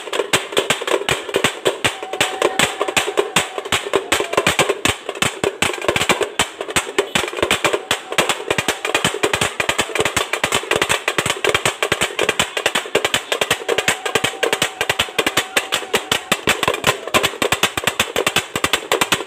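Drums beating fast in a steady, driving rhythm, with a faint held note coming in briefly twice.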